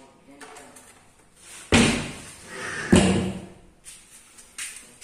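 Two loud slams about a second apart, each trailing off over most of a second.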